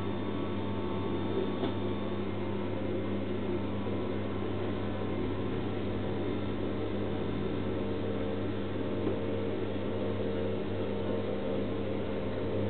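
HoMedics shiatsu massage cushion running, its electric massage motor giving a steady hum.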